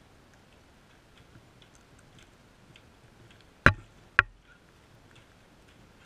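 Sulphur-crested cockatoos pecking at seed on paving close by: faint scattered ticks and cracks, with two loud sharp knocks about half a second apart a little past halfway.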